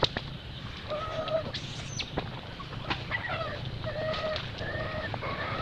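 A series of short, even-pitched animal calls, each about half a second long: one about a second in, then several in quick succession from about three seconds on. A few sharp clicks sound between them.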